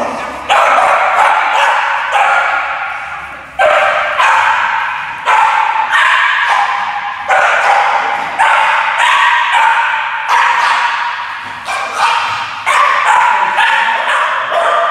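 Border Terrier barking over and over in reactive outbursts, sharp barks coming every half second to a second or so, each ringing on in a large echoing hall.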